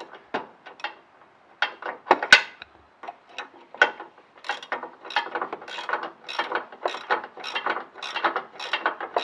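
A 1-1/16 inch ratcheting gear wrench clicking as it is swung back and forth, running down a big nylock nut. After a few scattered clicks, the ratcheting settles about three seconds in into a steady run of about three clicks a second.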